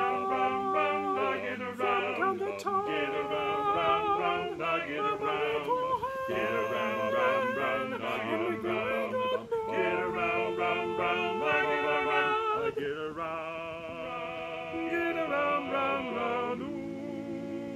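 Male vocal ensemble singing a cappella in close multi-part harmony, with held chords and moving parts and no instruments.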